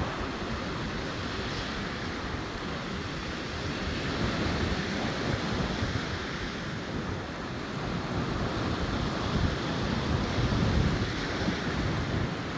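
Stormy sea surf washing onto the shore, swelling and easing, with wind buffeting the microphone.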